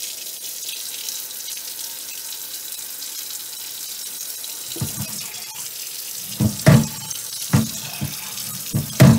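Kitchen tap running steadily into a cast iron oval roaster in a stainless steel sink. From about halfway, a chain mail scrubber works the baked-on barbecue crust under the water, with several short, loud knocks and scrapes.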